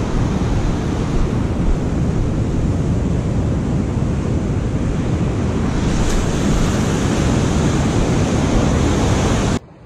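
Rough, dumping surf breaking on a sandy beach, heard through heavy wind buffeting the microphone as a loud, steady rush. It cuts off suddenly near the end.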